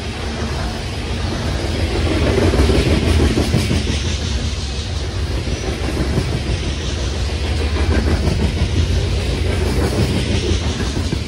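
Freight train of steel coal hopper cars rolling past on the track: a steady wheel-and-rail rumble with clatter from the cars, a little louder about two seconds in.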